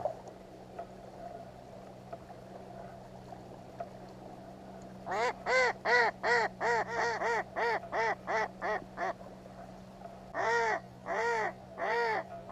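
Live decoy hen duck quacking: a rapid run of about a dozen quacks, loudest at first and fading, about five seconds in, then three slower, drawn-out quacks near the end. This is the calling a live decoy duck makes to draw wild drakes in.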